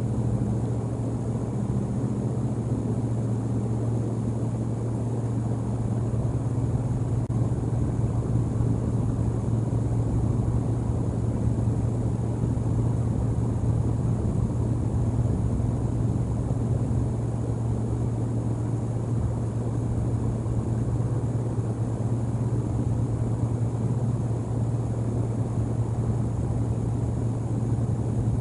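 Steady low rumble, even and unbroken, with no distinct calls or knocks.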